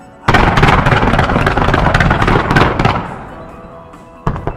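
Fireworks: a sudden dense volley of bangs and crackling sets off about a quarter second in, stays loud for nearly three seconds, then fades. A single sharp bang comes near the end. Show music plays underneath.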